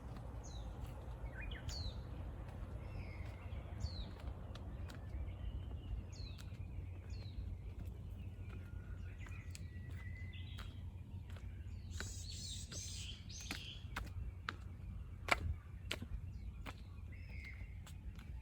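Forest ambience: small birds calling with short, high, downward-sliding notes about once a second, over a steady low rumble. Scattered sharp clicks, and a brief hissing rustle about twelve seconds in.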